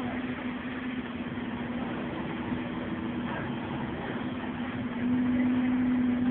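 Scania OmniCity bus's five-cylinder 9-litre diesel engine running as the bus drives, heard from inside the passenger saloon: a steady drone with one constant tone over road noise, growing louder about five seconds in.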